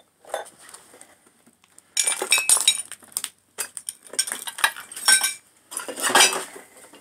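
Metal pots, pans and dishes clinking and clattering as they are stepped on and pushed aside on a cluttered floor. The clatter comes in several bursts, starting about two seconds in, with short metallic rings among the knocks.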